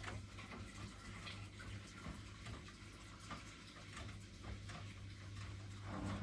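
Miele washing machine running: a steady low hum with many faint, irregular ticks and patters, growing louder near the end.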